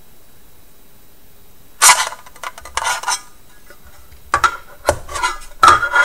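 A Nexstar CX USB 3.0 hard drive enclosure being taken apart by hand: the case and the laptop hard drive with its interface board scrape, rub and click as the drive is slid out and handled. The sounds come in several short bursts, starting about two seconds in.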